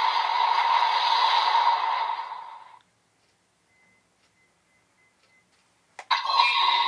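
DX Vision Driver toy belt playing an electronic transformation sound effect, a loud hissing whoosh that fades out about three seconds in. After a silent pause there is a sharp click about six seconds in as the driver is pressed, and a new electronic sound effect starts.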